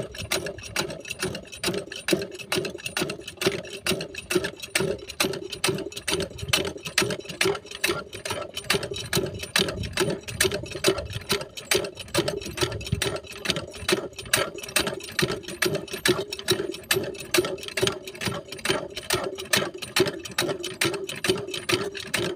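Small single-cylinder diesel engine driving an irrigation water pump, being hand-cranked to start it, turning over in a fast, even rhythm.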